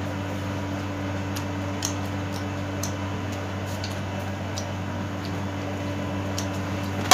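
Soft, scattered clicks and smacks of someone chewing grilled pork belly and pulling it apart with her fingers, over a steady low hum.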